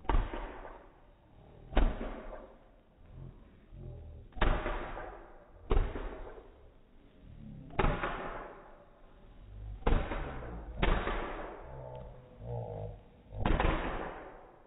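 Fireworks going off: a string of about eight loud bangs, one to two seconds apart, each fading out in an echo.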